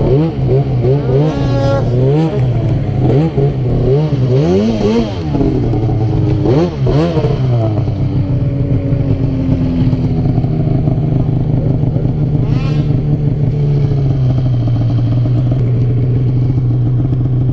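Two-stroke snowmobile engine blipped repeatedly, about one quick rev a second for the first seven seconds, then running at a steady speed that drops slightly near the end.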